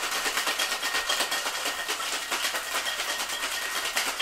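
Ice rattling hard inside a capped Boston cocktail shaker being shaken, a fast, even run of knocks several times a second.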